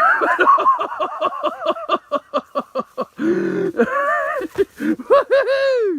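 A horse whinnying: a high call that trembles quickly as it falls in pitch, followed by a brief lower sound and more arching high calls.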